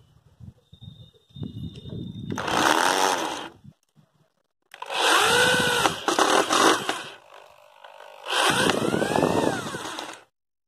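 Corded electric drill driving screws into a wooden plank, with three short runs. In each run the motor whine rises and falls in pitch as the trigger is worked. Light handling clicks come before the first run.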